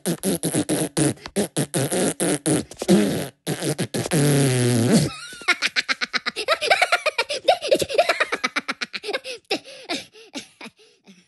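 Cartoon Minion voices: quick giggly sounds, then a long comic fart noise falling in pitch about four seconds in, followed by rapid high-pitched cackling laughter that fades near the end.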